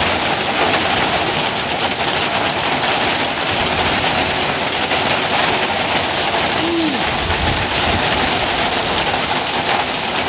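A heavy hail shower: hailstones pelting down hard and steadily on the ground and a parked ute, a dense, even hiss.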